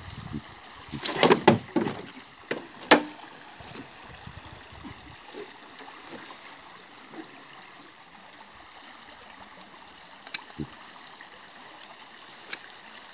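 Steady rush of river water around an aluminium boat. About a second in comes a cluster of knocks and clanks on the boat, with one sharp clack just before three seconds, and a few short clicks near the end.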